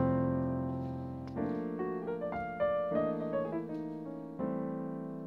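Background music: a piano playing a slow melody of single notes over sustained, slowly fading chords.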